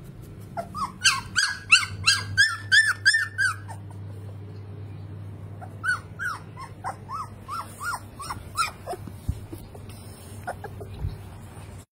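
Puppies giving rapid high-pitched yelps and whines: a quick run of short calls for the first few seconds, a pause of about two seconds, then a sparser run.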